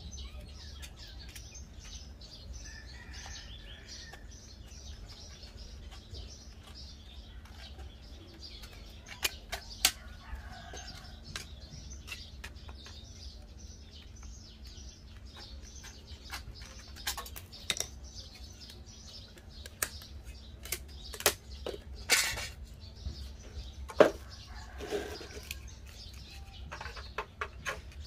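Scissors snipping and trimming a thin piece of sheet metal: a scattered series of sharp clicks and short crinkling sounds, busiest in the last third. Birds chirp in the background.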